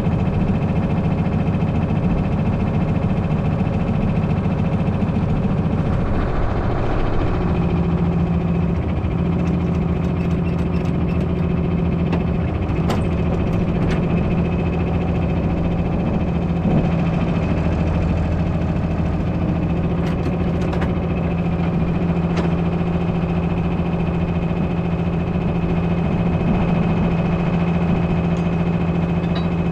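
A vehicle engine running steadily. Its note changes about six to seven seconds in and then holds steady again.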